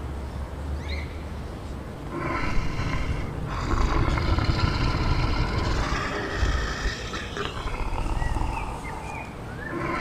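Eurasian lynx calling: two long, drawn-out yowls, the first beginning about two seconds in and the second running on to past seven seconds, followed by a few short bird chirps.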